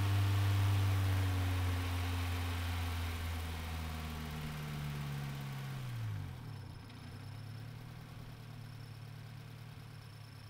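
Engine of a turbocharged Scion FR-S (Toyota 86) with an HKS setup, a flat-four. At first a loud low engine note slowly drops in pitch and fades. About six seconds in it gives way to a quieter steady low engine note as the car rolls slowly.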